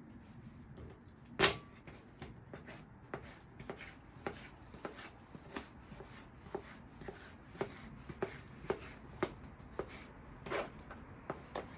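Kitchen knife chopping a red bell pepper on a plastic cutting board: irregular knocks of the blade on the board, with one louder knock about a second and a half in.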